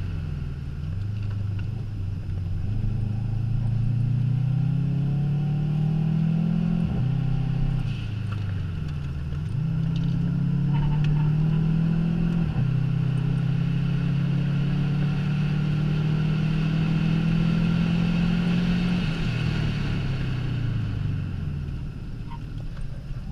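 In-cabin sound of a Subaru Impreza's flat-four boxer engine pulling hard on a track lap. The engine note climbs in pitch and drops back several times, holds high and steady for several seconds in the middle, then falls away as the car slows before picking up again at the very end. Tyre and wind noise run underneath.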